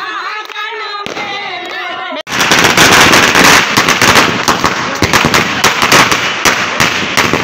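Firecrackers going off in a rapid, crackling run of many sharp bangs, starting abruptly about two seconds in. Before that, women's voices.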